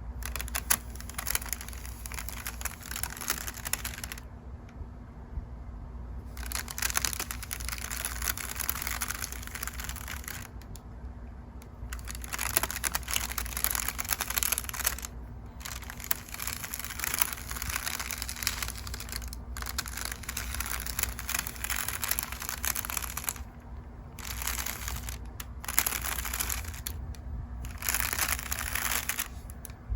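Makeup brushes sweeping over crinkle paper: a dense, scratchy crinkling in long stretches, broken by several short pauses.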